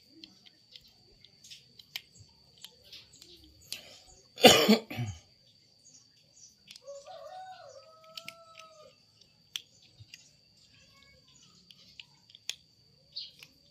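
Kitten chewing dry kibble, with small crunches and clicks of food against a plastic dish. One loud short cough-like burst about four and a half seconds in. A drawn-out call like a rooster's crow, rising then holding level, around seven to nine seconds, all over a steady thin high whine.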